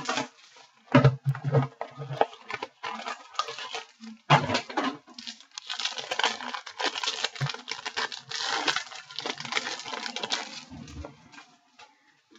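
Crinkling and rustling of wrapping and cardboard as a box of baseball cards is opened by hand, with scattered clicks and taps. The crinkling is densest from about six to ten seconds in.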